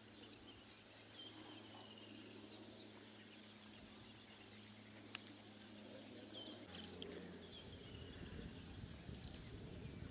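Quiet outdoor ambience: faint, scattered bird chirps over a low steady hum, which gives way to a rougher low rumble about two-thirds of the way in.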